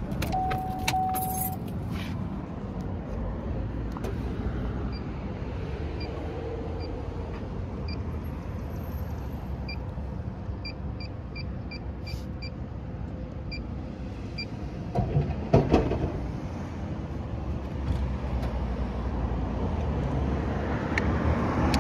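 Steady motor-vehicle noise. A short electronic tone sounds about a second in, and a run of faint, short high beeps comes in the middle, with a brief louder sound around fifteen seconds in.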